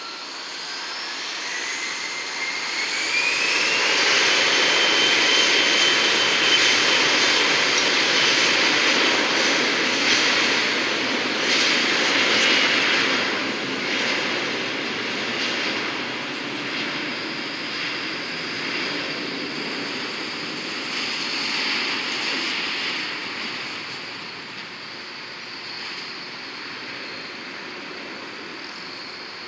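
Jet aircraft engines passing: a whine rising in pitch over the first few seconds, swelling to a loud roar, then slowly fading away.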